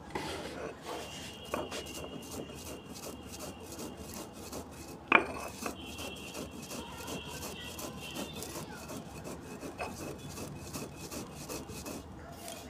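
Stone roller (batta) scraping and grinding back and forth on a stone slab (sil), crushing fennel seeds coarsely, in a continuous run of rough strokes. There is one sharp knock about five seconds in.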